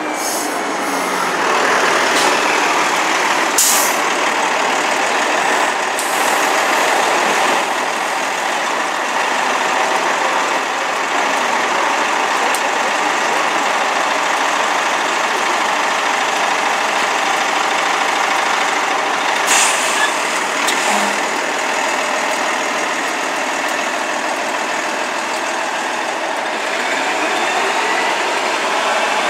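New Flyer Xcelsior XD40 diesel city bus running in traffic, with short air-brake hisses about 4 seconds in and again about 20 seconds in, and the engine note rising near the end as the bus pulls away.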